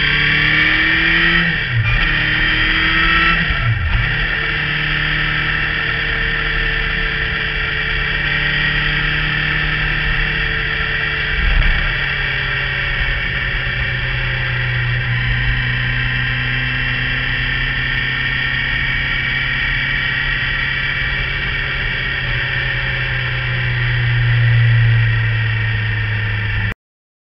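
Motorcycle engine under way with heavy wind noise. The engine pitch rises and breaks off twice in the first few seconds as it shifts up through the gears, then holds a steady cruising tone, swells briefly near the end, and cuts off suddenly.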